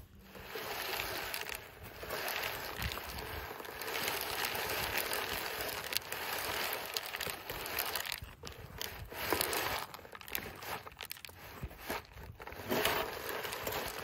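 Walk-behind push seeder being pushed along a row of tilled, stony soil: a steady gritty crunching and rattling of its wheels and frame over the dirt and rocks, with a couple of brief lulls.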